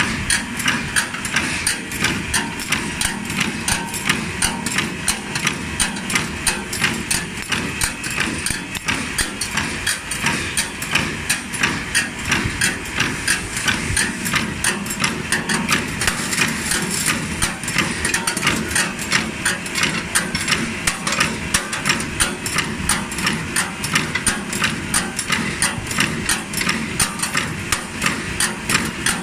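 CNC steel wire straightening and cutting machine running: its belt-driven straightening rotor and feed make a continuous mechanical sound, while the cutter gives sharp metallic clacks in a steady rhythm, about two a second, as it cuts the wire to length.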